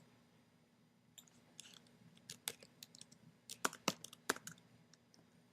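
Typing on a computer keyboard: a faint, irregular run of key clicks, with a few louder clicks between about three and a half and four and a half seconds in.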